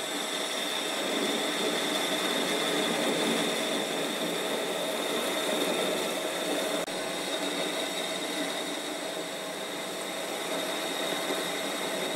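MN-80 lathe running under cut as the tool turns a metric 1:20 taper on a metal collet-chuck blank: a steady machine hum and cutting noise with a constant high whine.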